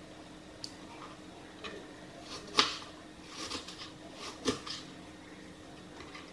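Kitchen knife cutting an onion on a plastic cutting board: scattered light taps, with two sharper knocks of the blade on the board about two and a half and four and a half seconds in.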